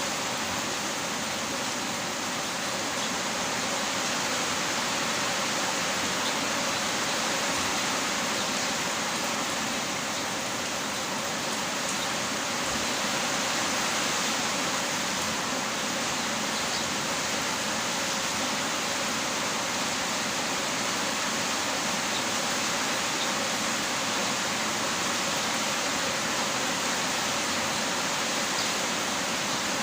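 Heavy rain falling steadily, a dense even hiss with faint scattered drop ticks.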